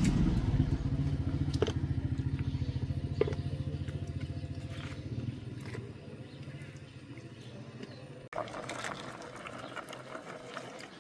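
A small engine running with a rapid, even putter, fading steadily over several seconds; a sudden cut near the end leaves quieter outdoor background.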